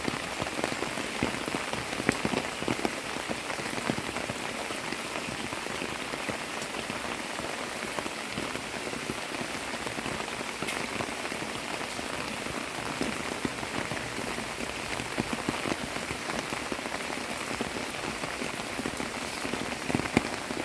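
Heavy monsoon rain falling steadily, a dense even hiss with many individual drops pattering on surfaces.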